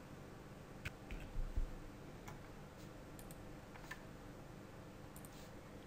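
About half a dozen faint, sharp clicks of a computer mouse and keyboard, spread irregularly over a few seconds, with a couple of soft low thumps about a second and a half in and a low steady hum of room tone underneath.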